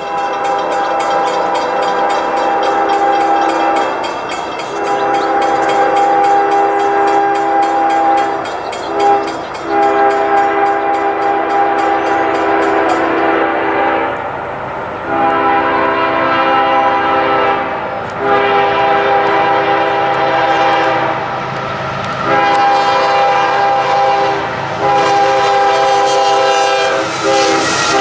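CSX freight locomotive's multi-chime horn blowing a series of long blasts, with one short blast about nine seconds in, for a road grade crossing; its pitch drops at the very end as the locomotive passes. A grade-crossing bell rings rapidly through the first half.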